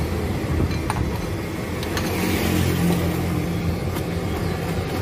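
A motor vehicle's engine running steadily close by, with a low hum that swells a little in the middle. There are a few light clicks of utensils at the cart.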